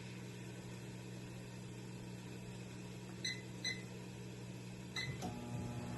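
Microwave oven running with a steady low hum while it reheats food. A few short, high pings sound about three seconds in and again near five seconds.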